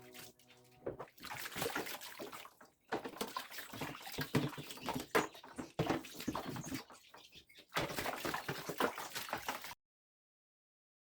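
Water splashing and sloshing with irregular knocks and clatter, as in hand-washing refrigerator parts. It cuts off abruptly about ten seconds in.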